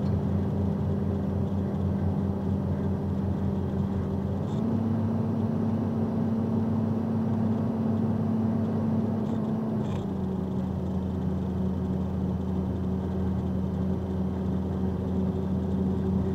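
Steady low drone of a vehicle's engine and tyres at highway speed, heard from inside the cabin; its pitch steps up slightly about four and a half seconds in and drops back about ten seconds in.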